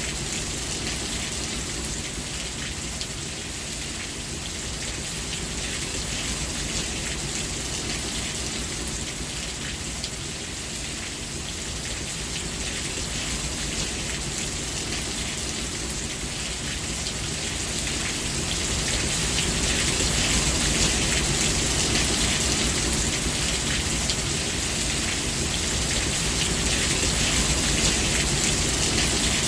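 Steady heavy rain falling and pattering on surfaces, an even hiss with a low rumble beneath, growing a little louder about two-thirds of the way through.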